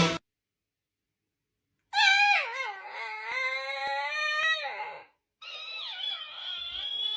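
A dog howling: a long drawn-out howl that slides down in pitch, then after a brief break a second long howl.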